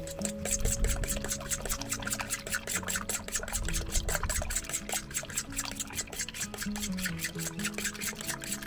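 A fork beating eggs and milk in a stainless steel bowl: quick, regular clinks and scrapes of metal on the bowl's side, about five strokes a second, stopping near the end. Background music plays under it.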